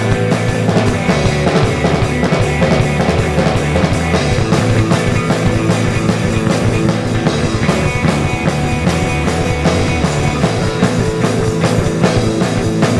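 Rock band playing live: electric guitar, electric bass and a drum kit together, at a steady full level with a driving beat.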